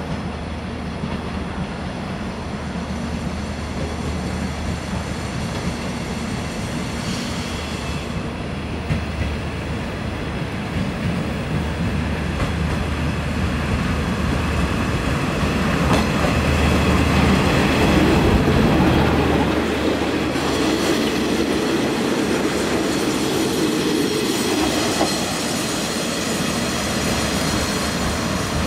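Diesel railcar train (HSOR-100A) arriving at a station: the diesel engine runs with a steady low hum under the rumble of wheels on the rails. It grows louder as the train approaches and is loudest about two-thirds of the way through as it pulls alongside.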